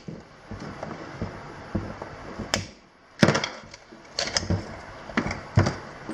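Side cutters snipping off zip-tie tails on a wiring harness: a scattered series of sharp clicks and small knocks, the loudest about two and a half and three seconds in.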